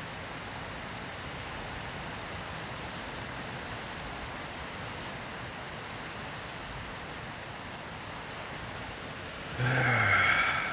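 Steady rush of river water. About nine and a half seconds in, a brief loud sound with a falling pitch cuts across it for about a second.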